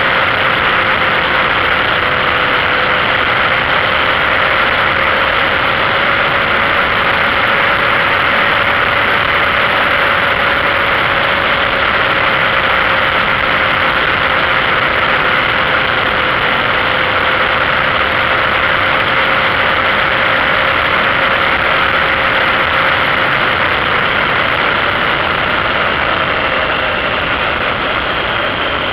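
Motorcycle riding at a steady speed: the engine's steady hum under heavy rushing wind and road noise, easing off slightly near the end.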